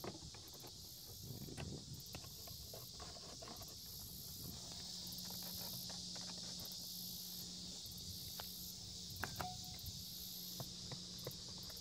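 Faint small clicks and taps of the plastic dashboard air vents being handled, over a steady faint hiss.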